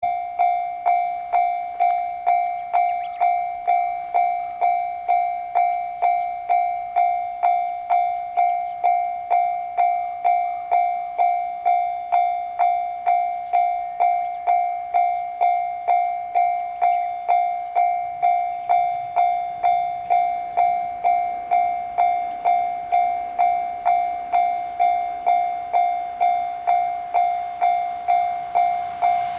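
Japanese railroad crossing warning bell, the 'kan-kan' ding, starting suddenly and repeating at a steady pace of a little under two strikes a second. It is the crossing warning that a train is approaching.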